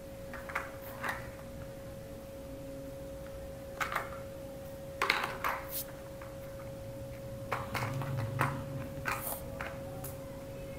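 Small plastic toy cars clicking and knocking against each other and a plastic toy track as a child handles them, in scattered bursts with a busier cluster near the end. A constant steady tone hums underneath.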